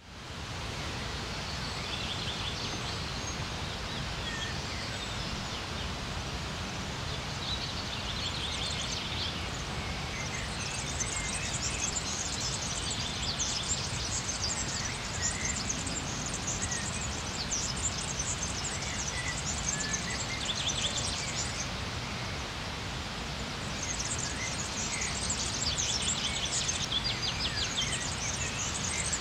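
Several birds singing, with repeated high trills and chirps that come and go, over a steady rushing background noise.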